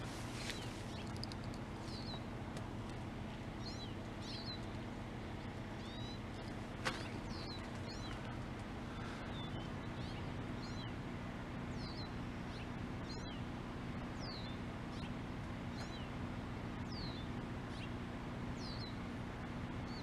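A small bird repeating short, high chirps that slide downward, roughly one a second, over a steady low hum. One sharp click about seven seconds in.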